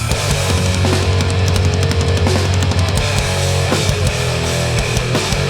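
Live hardcore punk band playing without vocals: distorted guitar, bass and fast, hard-hit drums. This is the loud instrumental opening of a song, which starts abruptly at the beginning.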